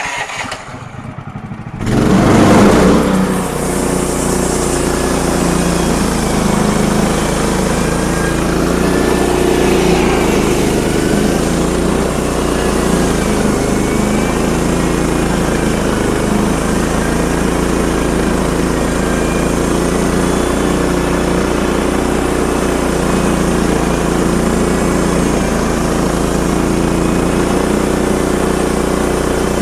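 Portable sawmill's engine coming up to speed about two seconds in, then running steadily under way.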